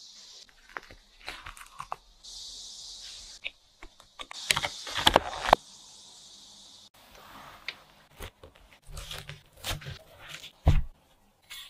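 Kitchen handling sounds: crinkling and crackling with scattered sharp taps, a cluster of clicks about halfway through, and a dull thud near the end.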